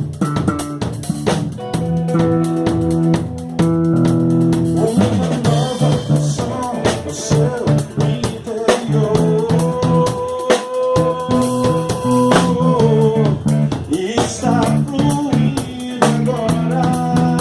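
Instrumental break of a live band: guitar, bass guitar and drum kit playing together without vocals, with the guitar holding one long note near the middle.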